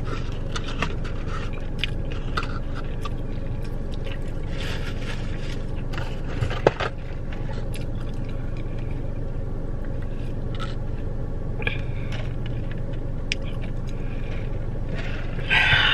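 Steady low hum of a car's interior, with scattered small clicks and rustles, and a short slurp of iced tea through a straw near the end.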